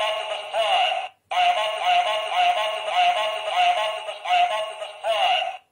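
Electronic voice box from the Generation 2 Optimus Prime toy playing its recorded Optimus Prime speech through its small speaker. It is a processed, thin-sounding voice without bass: a short phrase, a brief pause, then a longer phrase that cuts off sharply.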